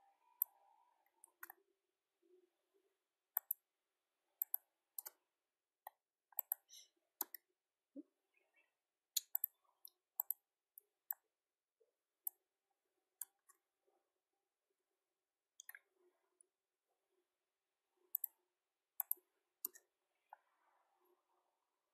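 Quiet, irregular clicks of a computer mouse and keyboard, some in quick pairs, as text is selected, copied and pasted.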